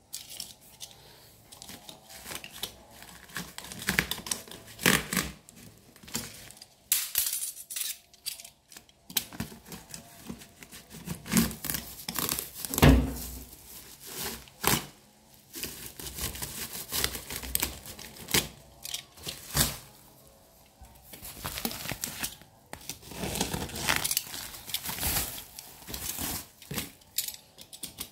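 Bubble wrap and plastic packaging being cut with a utility knife and torn open, giving irregular crinkling, ripping and crackling, loudest about halfway through.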